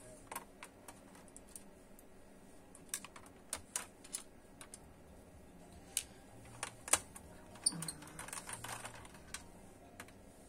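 Irregular light clicks and taps of small parts and tools being handled on a workbench, with a brief rustle a little after the middle.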